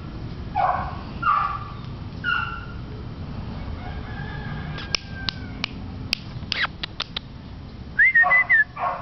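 Beagle puppy yipping and whining in short, high-pitched cries during play. There are a few yips in the first couple of seconds and a louder squealing yelp near the end, with a run of short sharp ticks in between.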